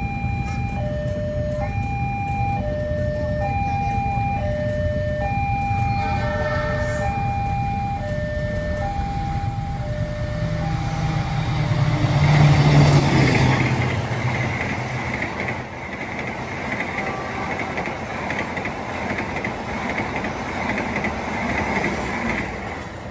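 A level-crossing warning alarm repeats a two-tone chime over the drone of an approaching diesel locomotive. About twelve seconds in, the locomotive passes at its loudest, followed by the steady rumble and rush of its passenger coaches on the rails.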